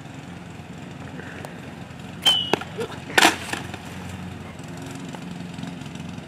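A few sharp clacks about two seconds in, then a louder clatter about a second later, over a steady low hum.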